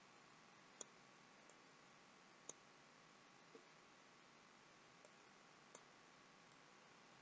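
Faint computer mouse button clicks, about six spread a second or so apart, over a near-silent background hiss.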